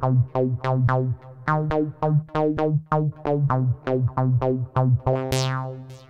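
miniKORG 700S software synthesizer playing its 'Acid Bank' lead preset: a monophonic acid-style line of short, decaying notes, about three a second, over a steady low bass. Near the end a rising sweep climbs high, then the notes fade out.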